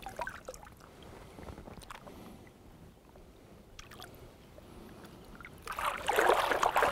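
Lake water lapping and dripping softly around a mirror carp being held in the shallows for release, then a loud splashing near the end as the fish swims off out of the angler's hands.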